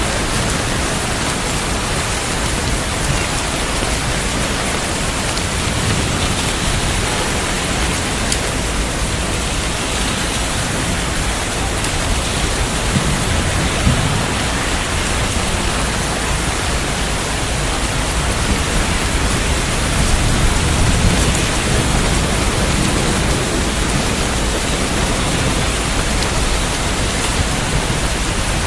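Steady rain falling, a dense even hiss, with low thunder rumbling up twice: a little under halfway through and again about three quarters of the way in.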